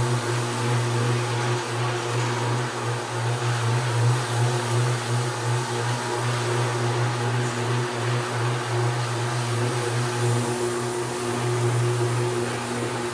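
Floor machine honing a terrazzo floor, its motor running with a steady low hum over a constant grinding hiss.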